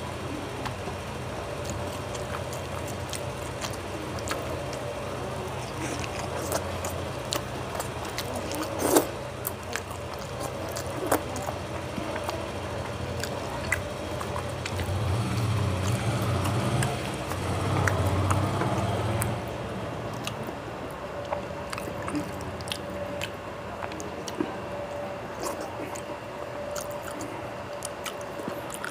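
A person eating rice and fish curry by hand: fingers squishing and mixing food on a plate, with chewing and lip-smacks as sharp clicks scattered throughout, the loudest about nine seconds in. A steady low hum runs underneath.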